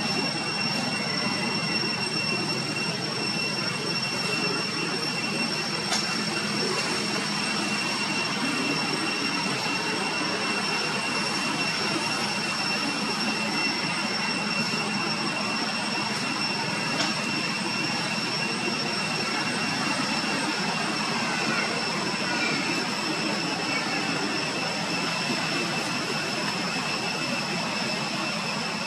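A steady, even hiss with a constant high-pitched whine running through it, unchanging throughout, with one faint click a few seconds in.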